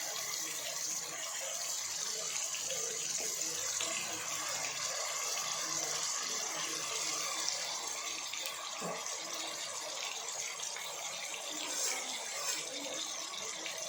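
Chopped onions frying in hot oil in a pan, a steady sizzling hiss.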